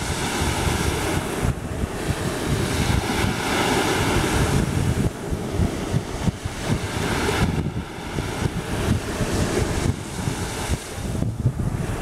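Small sea waves breaking and washing up a sandy beach, the surf hiss swelling and fading every few seconds. Wind buffets the microphone with a low rumble.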